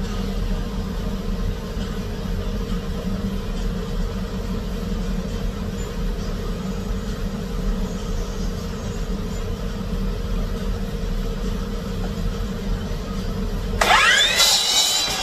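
A steady low hum runs throughout. Near the end an electric miter saw's motor switches on and its whine climbs quickly to full speed.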